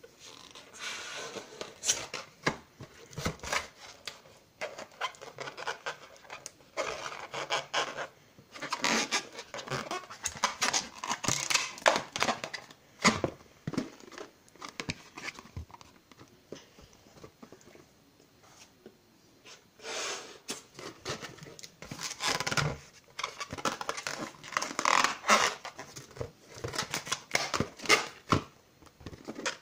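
Small rubber balloons being handled, stretched and rubbed between the hands on a tabletop: irregular bursts of rubbing and handling noise with sharp clicks, quieter for a few seconds about halfway through.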